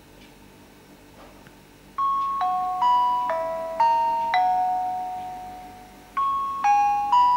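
Music from a YouTube video playing through the Toshiba Thrive tablet's built-in speakers: a slow melody of single bell-like struck notes, each ringing and fading, starting about two seconds in after faint room tone.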